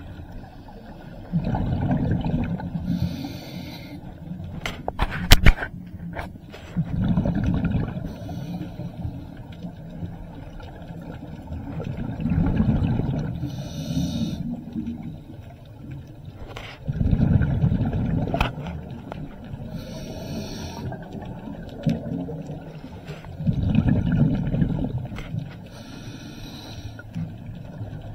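Scuba regulator breathing underwater: a low, bubbling rush of exhaled air about every five seconds, with the hiss of each inhalation between. A few sharp clicks sound about five seconds in.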